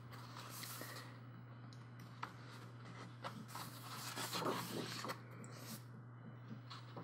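Soft rustle and slide of the coloring book's thick paper pages under the hands, with a few light taps, and a page being turned about two-thirds of the way in. A steady low hum runs underneath.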